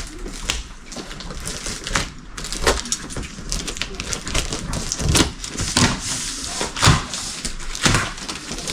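A cardboard box being cut open with scissors and handled: irregular rustles and scrapes with scattered knocks, the sharper knocks coming in the second half.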